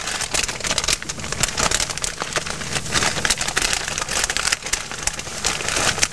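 Irregular crinkling and crackling of plastic packaging, handled while rummaging in a refrigerator.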